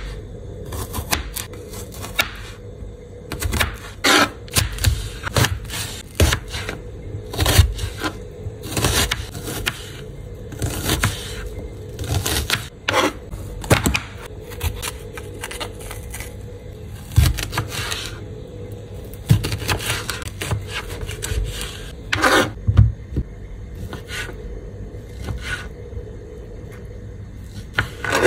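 Kitchen knife chopping and slicing on a plastic cutting board: irregular taps of the blade striking the board, with short scrapes, as garlic, red bell pepper and sausages are cut.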